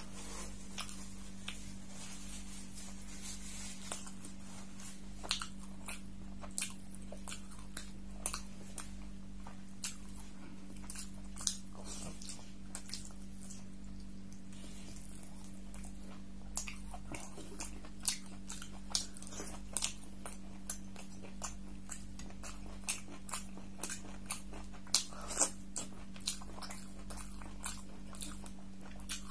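Close-miked eating by hand: moist clicks and smacks of chewing and of fingers working through oily beef curry, coming more often in the second half. A steady low hum sits underneath.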